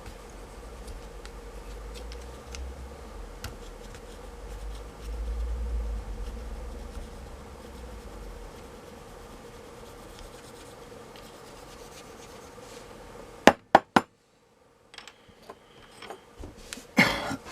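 Hands and tools working apart a laptop battery pack of 18650 lithium-ion cells held in bulky adhesive: low rubbing and scraping with small ticks, then three sharp clicks about three-quarters through and a short, louder scrape near the end.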